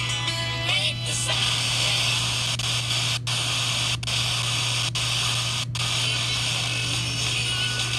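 FM static hiss from an RTL-SDR receiver demodulating wide-band FM while being tuned between stations. A station's music fades into the hiss within the first second, and the hiss drops out briefly a few times as the tuning jumps.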